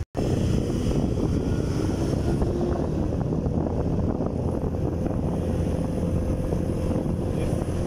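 Motorcycle under way with wind buffeting the microphone: a steady, loud rumble of engine and wind. The sound cuts out for an instant at the very start.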